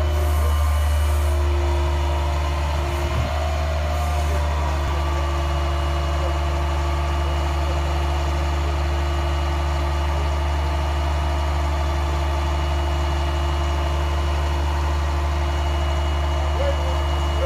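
Bucket truck engine running steadily at idle while the Reach-All boom's hydraulics raise the bucket: a constant low engine drone with no change in speed.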